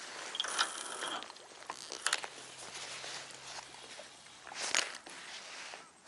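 Fishing rod and spinning reel handled just after a cast: a rustling burst near the start, then a few sharp clicks about two seconds in and again near the end.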